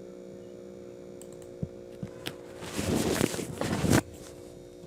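A few sharp clicks, then about a second of dense clattering that cuts off suddenly, over a steady electrical hum: handling noise at a computer desk.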